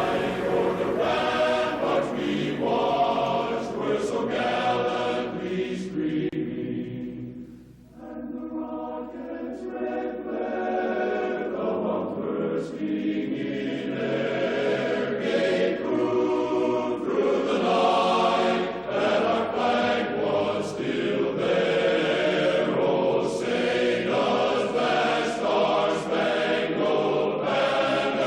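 A choir singing the national anthem as slow, sustained music. It fades almost to quiet briefly about eight seconds in, then comes back.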